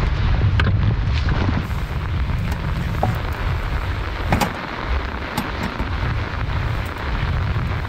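Heavy rain, with wind buffeting the microphone in a low rumble and scattered sharp taps of drops striking close by.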